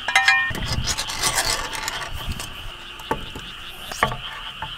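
Chopsticks scraping scrambled egg out of a frying pan into a small metal bowl. It starts with a couple of ringing clinks on the bowl, then a rasping scrape for about a second and a half, then a few light knocks. A steady high chirring of insects runs behind it.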